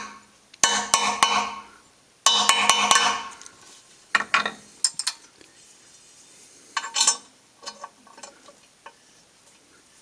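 Hammer tapping a screw extractor into a broken screw in an alloy wheel barrel, setting it to bite: sharp metallic taps that ring on, in quick groups of three or four. Lighter, scattered clinks follow in the second half.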